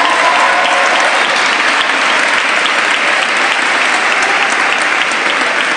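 Large audience applauding in a large stone hall, with a few cheers near the start.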